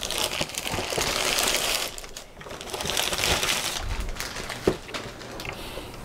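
Plastic bag crinkling as a computer keyboard is slid out of it, in two spells with a short lull about two seconds in, then a single sharp knock a little before the end.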